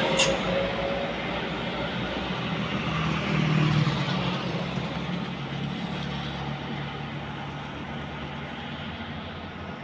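Diesel truck engines working uphill: a steady low drone that swells about three to four seconds in and then eases, with a brief sharp click at the very start.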